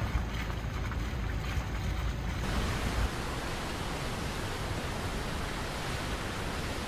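Wind and road noise from a car driving along a forest road, with a heavy low rumble. About two and a half seconds in it changes abruptly to an even, steady hiss.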